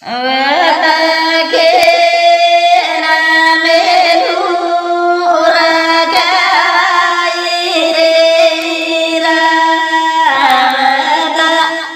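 A woman singing a Banjara vaya wedding song in long, held notes. The singing starts suddenly and fades out near the end.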